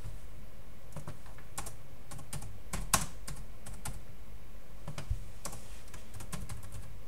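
Typing on a computer keyboard: irregular key clicks in small runs, with one louder keystroke about three seconds in.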